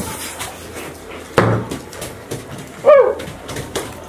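Scattered knocks and clatter at a table, with a loud thump about a second and a half in, and a short pitched vocal cry that dips and rises about three seconds in.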